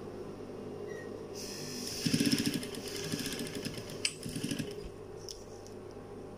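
Electric sewing machine stitching stretch fabric in three short runs, from about a second and a half in until about five seconds in, with a sharp click in the middle, over a steady hum.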